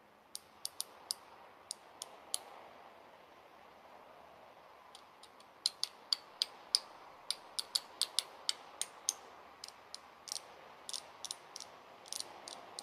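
Light, irregular metallic clicks and taps as a metal mate straw (bombilla) is struck across the bottle caps, metal beads and wire coils of a handmade sound picture; a few taps at first, then quicker runs of them from about five seconds in.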